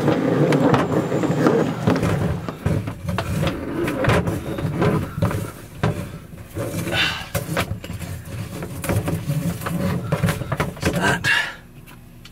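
A water hose being fed and dragged through a hole in a compartment wall panel, rubbing and scraping with many knocks and clicks as it is handled. Near the end the handling noise stops.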